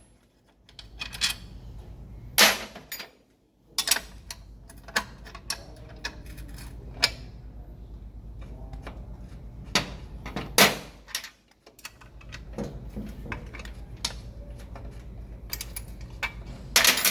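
Scattered metal clicks, clinks and knocks of wrenches, sockets and loose bolts against a 1998 Ford Contour transaxle case as it is unbolted, over a steady low hum.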